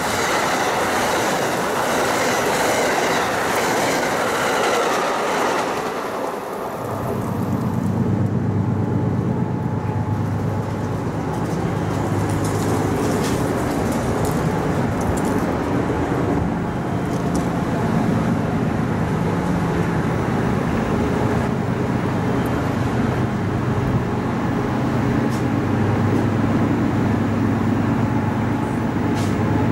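Amtrak passenger cars passing at speed, a loud rush of wheel and rail noise that falls away about six seconds in. A steady low rumble follows and continues.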